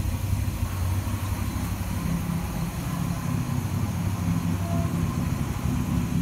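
1967 Buick Special engine idling steadily, with its ignition timing just advanced.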